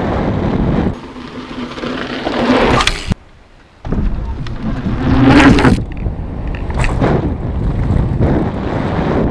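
Wind buffeting the microphone of a helmet-mounted action camera as a mountain bike rolls fast down a gravel trail. After a sudden cut with a moment of near silence, a mountain bike rides over a wooden ramp past a low camera, its tyres' rushing whoosh loudest about five seconds in. The wind buffeting then returns.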